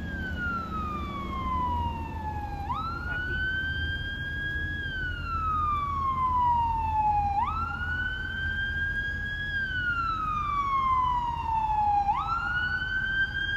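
Fire engine siren on a slow wail, its pitch climbing quickly, holding near the top, then sliding slowly down, about every five seconds. A steady low rumble lies underneath.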